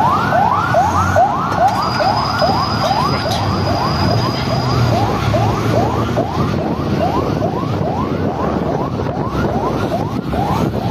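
Police vehicle siren wailing in a rapid yelp, repeated rising whoops at nearly three a second, over the steady noise of engines and road traffic.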